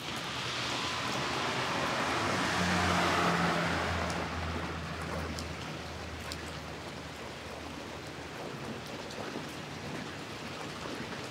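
Steady rain falling on a street, with a vehicle passing on the wet road a couple of seconds in, its low hum swelling and fading out over a few seconds.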